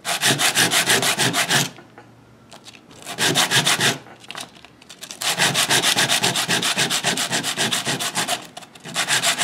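The cut end of a short piece of white PVC pipe being sanded by hand on a sheet of sandpaper, rubbed rapidly back and forth. The strokes come in four bursts with short pauses between them, the longest burst in the second half.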